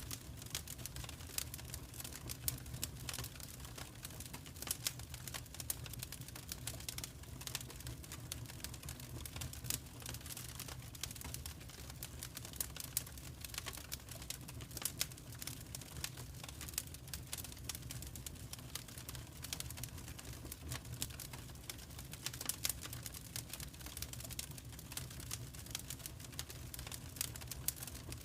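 Wood fire crackling in a fireplace: dense, irregular pops and snaps over a steady low hum.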